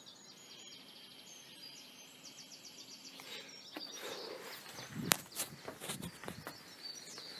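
Quiet outdoor background with small birds chirping and giving fast high trills, and a single sharp knock about five seconds in.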